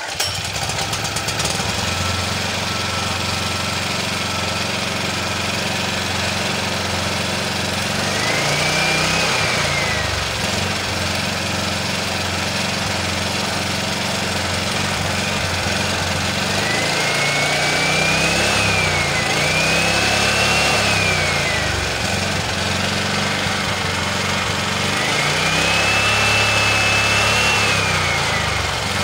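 Sumec Firman SPG2900E2 petrol generator's GX160 single-cylinder four-stroke engine running steadily, then revved four times as the throttle is opened, its pitch rising for two to three seconds and falling back each time. The engine speed is being raised to try to get the alternator to produce voltage.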